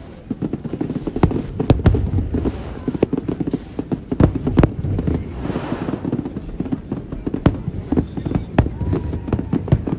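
Aerial fireworks shells bursting one after another, a dense run of sharp bangs and cracks.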